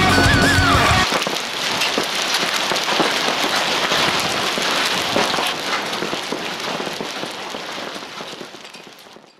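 Heavy thunderstorm rain falling on a surface: a dense hiss full of small drop impacts that fades out gradually. The tail of an electric-guitar music track ends about a second in.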